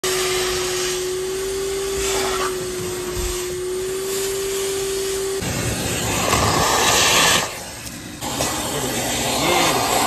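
Wet and dry vacuum cleaner running with its nozzle sucking over car interior upholstery and trim. For about the first five seconds it gives a steady high whine; then it turns into a rougher, louder suction rush that drops for a moment after about seven and a half seconds.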